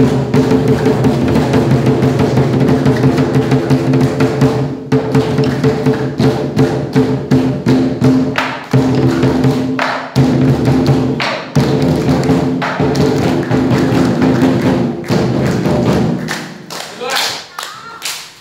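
Lion dance percussion music: a fast, steady beat of strokes over a ringing tone held underneath, breaking off briefly a few times and stopping about sixteen seconds in.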